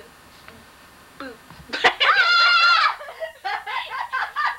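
A child's high-pitched, wavering squeal about a second long, just after a short sharp click, then a run of giggling.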